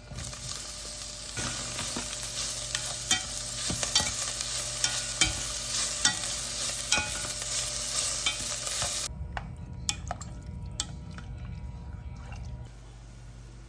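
Food sizzling in a hot pan while being stirred, with frequent sharp clicks of the utensil against the pan. About nine seconds in the sizzle stops suddenly, leaving a low hum and a few clicks, which fade near the end.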